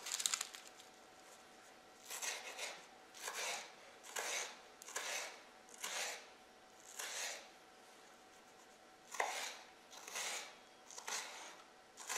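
Kitchen knife slicing an onion on a wooden cutting board: slow, even cuts about one a second, each a short rasping stroke.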